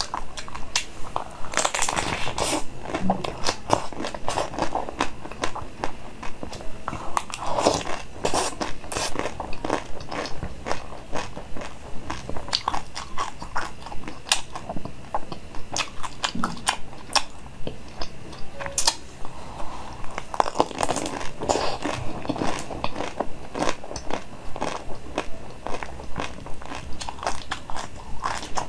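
Biting into and chewing a frozen chocolate-coated pink donut-shaped sweet: many sharp crunches and crackles over a steady chewing rhythm of about two chews a second.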